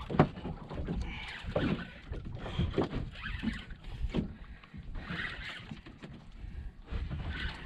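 Water slapping and lapping against the hull of a small boat in uneven knocks and splashes, over a steady low rumble.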